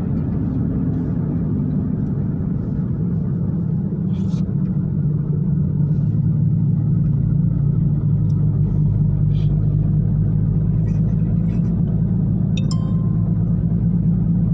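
Inside a car driving on a paved road: steady engine and tyre drone in the cabin, getting a little louder and deeper about halfway through, with a few light rattles.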